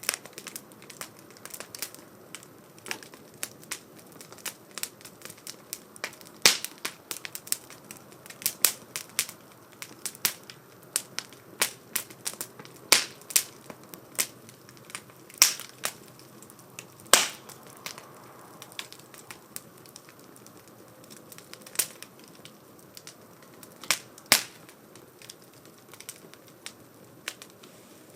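Wood fire burning in a 2×4 STOVE fire stand, crackling with irregular sharp pops, a few much louder than the rest, over a faint hiss.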